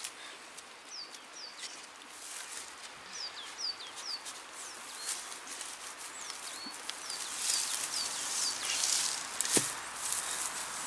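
Hand drill with a spoon-shaped bit being twisted into a dead log, the blade scraping and rasping in the wood in uneven strokes, busiest in the second half, with one sharp knock near the end. A bird calls throughout with short downward-sliding chirps.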